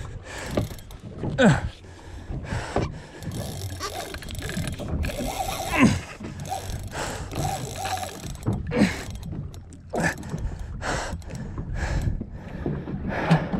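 Large Shimano Stella spinning reel under heavy load as a big fish is fought: ratcheting, clicking reel noise from the drag and the gears as line is fought for and the handle is cranked. Short straining grunts come every second or two.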